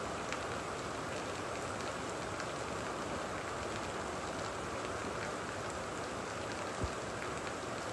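Heavy rain falling steadily, with scattered drop ticks throughout and a single low thump about seven seconds in.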